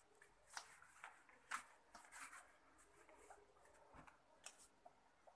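Faint rubbing swishes of a whiteboard being wiped clean, with a soft knock about four seconds in.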